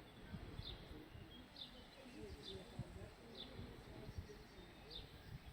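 A small bird repeating a short, high chirp about once a second, faint over a low, uneven rumble.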